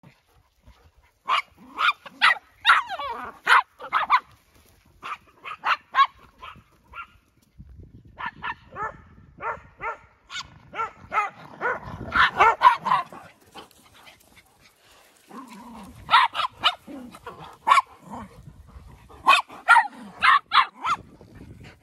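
Dogs barking in play: sharp barks in rapid volleys of several at a time, with short pauses between the volleys.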